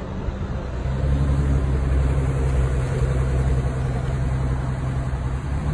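An engine idling steadily: a low, even hum that firms up about a second in.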